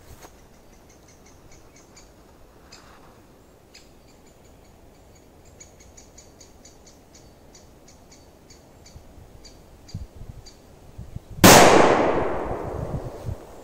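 A smoke-bomb firecracker goes off with one loud bang about eleven and a half seconds in, its sound trailing off over about two seconds. Before it, faint repeated bird chirps.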